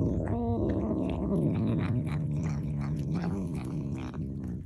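A cat growling low and continuously, the pitch wavering, with a brief higher, stronger note shortly after it starts.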